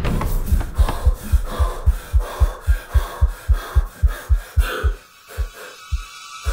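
Heartbeat sound effect: deep pounding beats, fast at about three to four a second, slowing to about one a second near the end, with heavy breathing over it.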